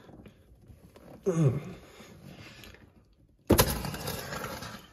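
Fuel line pulled off a 1988 Isuzu Trooper's fuel pressure regulator: about three and a half seconds in, pressurized fuel bursts out with a sudden loud rush that fades over a second or so. A brief falling squeak comes about a second in.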